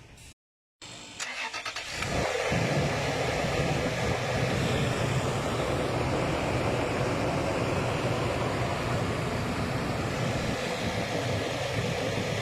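Car engine cranking briefly and catching about two seconds in, then running steadily. The car has a faulty fuel pressure regulator.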